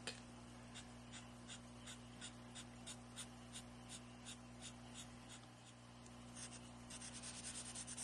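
Faint scratching of a Sharpie permanent marker's felt tip on paper as it fills in a black area, about three short strokes a second. There is a brief lull a little past the middle, and the strokes come quicker near the end.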